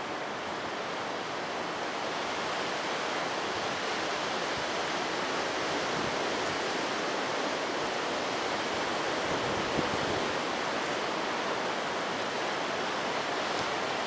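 Strong windstorm wind of 50 to 60 mph rushing through bare tree branches. It makes a steady rushing noise that slowly builds louder.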